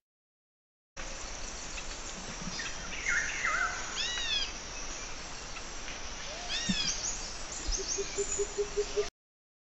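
Recorded jungle night ambience used as a sound effect: a steady hiss of insects with bird calls, repeated arching chirps in two clusters, and a short run of low, rapid pulsing calls near the end. It starts and cuts off abruptly.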